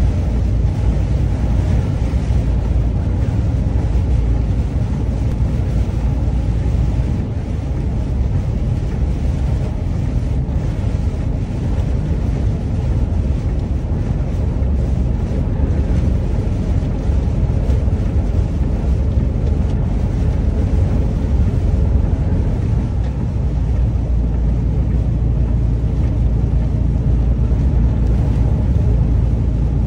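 Steady low rumble inside a truck cab cruising at motorway speed: engine and tyre noise on a wet road.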